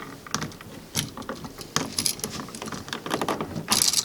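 Light clicks and small metallic rattles of a wall light switch and its wires being handled as a wire is pulled off a terminal, with a louder rattle near the end.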